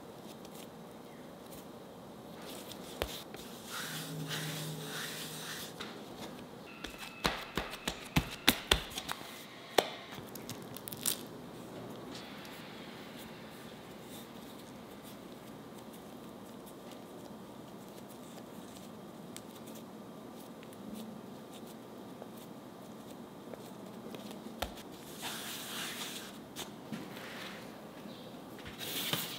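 Quiet hand-work sounds as bread dough is shaped into buns: soft rustling and crinkling, with a cluster of sharp taps and clicks about seven to eleven seconds in and more rustling near the end.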